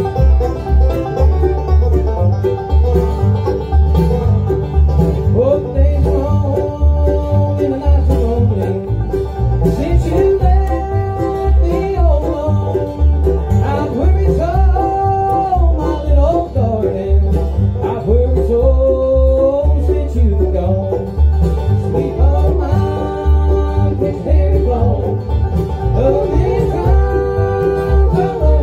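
Bluegrass band playing live: banjo, mandolin, acoustic guitar and upright bass together, over a steady, even pulse from the bass.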